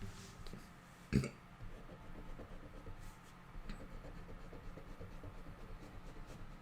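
Faint pen strokes scratching on a drawing surface while inking, over a low steady hum, with one sharp knock about a second in.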